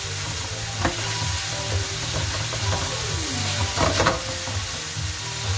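Minced beef sizzling as it browns in a nonstick frying pan, with a plastic slotted spatula scraping and chopping through it. There are two sharper scrapes, about a second in and again near four seconds.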